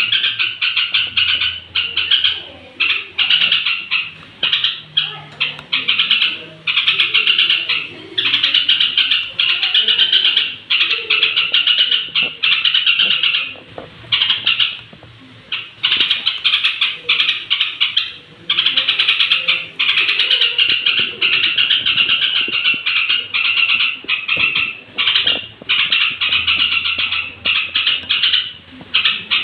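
Yellow-vented bulbul (trucuk) giving its evening roosting chatter: a dense run of rapid, loud chirping notes with brief pauses every few seconds.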